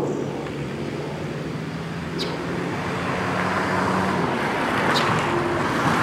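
Road traffic: a steady low engine hum that fades about four seconds in, while the sound of a passing vehicle swells over the second half. Short, high chirps sound about every three seconds.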